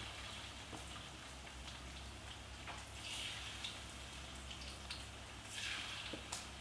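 Marinated chicken pieces deep-frying in hot oil: a steady sizzle with crackles and pops, swelling louder about three seconds in and again near the end.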